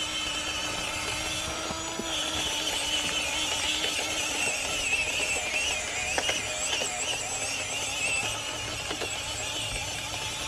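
Small-scale RC crawler driving over dirt and rocks: its electric motor and gears whine steadily, wavering in pitch, with scattered small clicks and crunches from the tyres and chassis.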